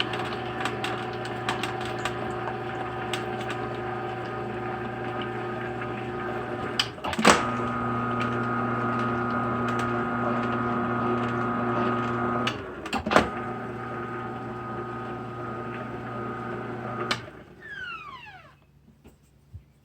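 Electric juicer running steadily with a motor hum and crackling clicks as produce is fed through, with two loud knocks, one about seven seconds in and one about thirteen. It is switched off near the end, and its whine falls away as it spins down.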